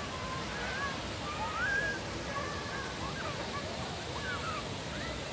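Outdoor ambience at a busy wading pool: distant voices of people and children over a steady background wash, with short high calls that slide up and down scattered throughout.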